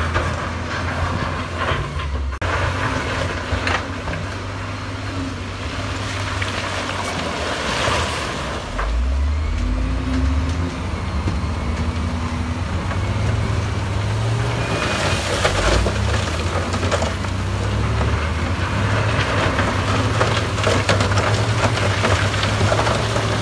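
Heavy diesel engines running steadily with a deep hum. In the second half a dump truck tips its bed and broken rock clatters and rumbles out of it.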